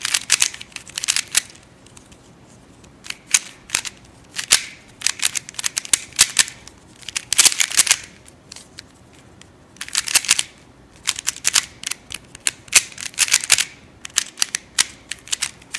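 Plastic pieces of a ShengShou LingLong mini 3x3 speed cube clicking and clacking as its layers are turned fast during a solve, in bursts of rapid turns broken by short pauses. The cube is unlubed and untensioned, straight out of the box.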